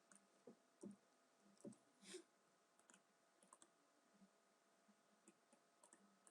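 Near silence with scattered faint clicks of a computer mouse, a dozen or so irregular clicks, one slightly longer about two seconds in.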